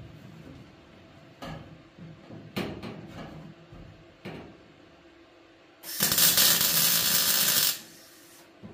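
A few light knocks and clicks, then a MIG welder arcing in one burst of about two seconds, some six seconds in, tack-welding a new sheet-metal floor panel into a car body shell.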